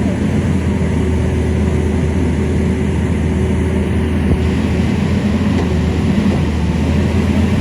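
Excavator's diesel engine running steadily at a loud, even pitch.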